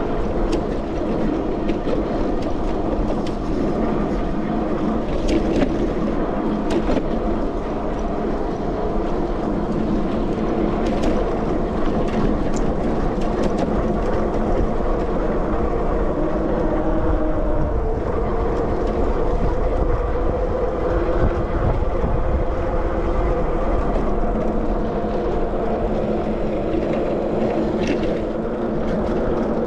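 Sondors MadMods electric bike riding along asphalt: a steady rolling hum from the drive and tyres, with several steady tones that shift slightly with speed. A few light clicks come from bumps.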